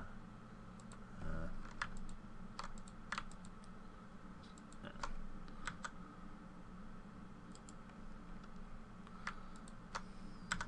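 Irregular computer keyboard key presses and mouse clicks, scattered singly and in small groups, over a steady low hum.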